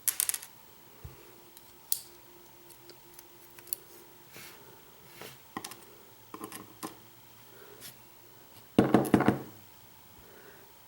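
Small metal clicks and taps of lock pins, springs and tweezers being handled while a pin tumbler lock is taken apart, with a louder cluster of clatter about nine seconds in.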